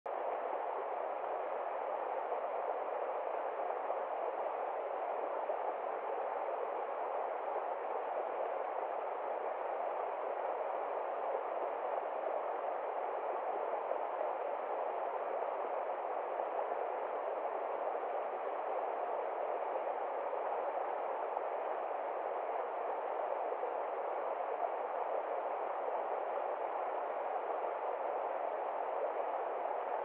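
Small stream rushing steadily over rocks: an even, unchanging rush of water with no separate splashes or other events.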